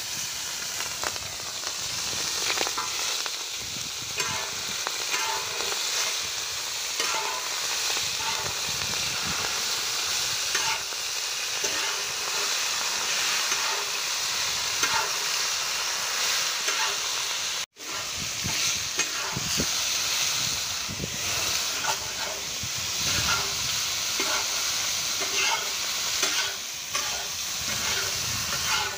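Raw chicken pieces sizzling in hot oil on a large iron tawa, with a metal spatula scraping and clicking against the pan as the meat is stirred. The sizzle starts suddenly as the meat goes in and cuts out for an instant about two-thirds of the way through.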